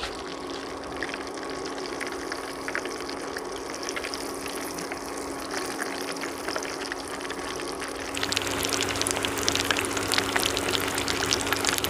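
Hot oil sizzling and crackling around chicken pieces coated in crushed potato chips as they deep-fry, over a steady low hum. It gets louder and more crackly for the last few seconds.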